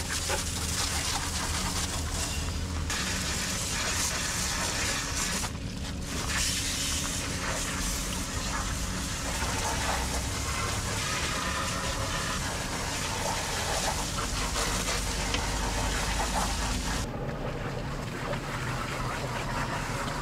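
Water hose spraying water into the back of a skid loader, washing out packed dirt; a steady hiss of spray that changes abruptly a few times.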